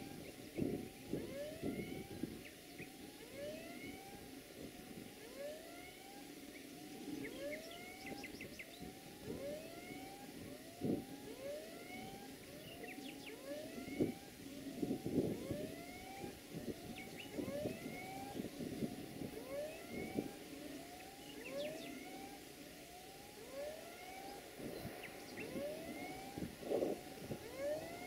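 A chorus of short rising calls from animals in the surrounding vegetation, repeated over and over and overlapping, over a faint low rumble from an approaching Siemens Desiro diesel railcar.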